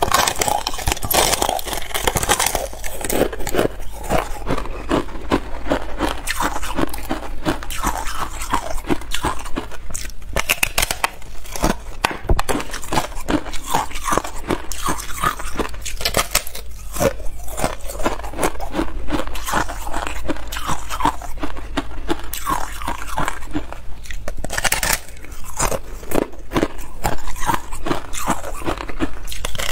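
A thin shell of balloon-frozen ice being bitten and chewed: a dense run of crisp crunching and cracking as the thin ice breaks between the teeth, with no let-up.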